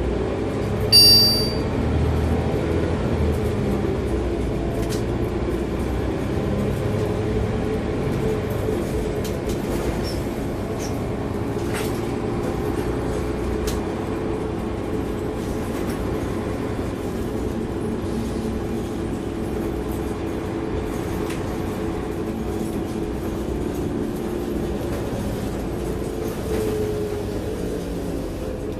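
Scania K280UB bus's engine and ZF automatic gearbox heard from inside the passenger saloon while under way: a steady drone with a few low tones that drift slightly in pitch. About a second in there is a short, sharp, high electronic beep.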